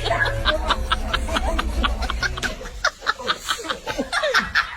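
Laughter: a long run of quick, short chuckles, about five a second, over a low steady hum, breaking into looser laughing sounds after about three seconds.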